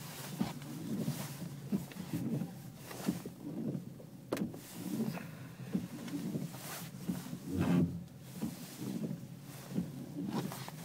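Chevrolet Onix steering making repeated creaking and groaning noises in uneven bursts, with a sharp click about four seconds in and the loudest groan near the eight-second mark: the steering noise fault being shown.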